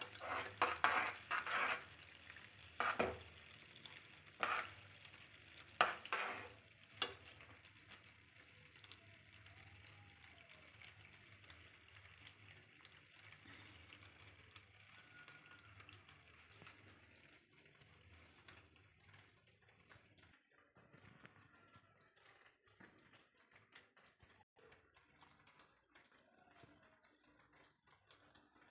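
Steel spoon stirring and knocking in a steel pan of bubbling syrup: several sharp clinks and scrapes in the first seven seconds, then a faint steady bubbling sizzle that fades to scattered light clicks in the last third.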